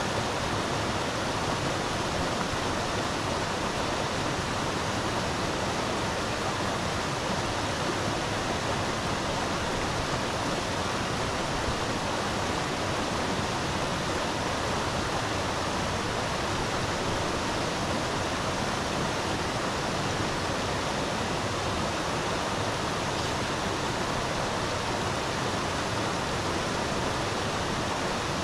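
Mountain stream rushing steadily, an even unbroken noise with no changes.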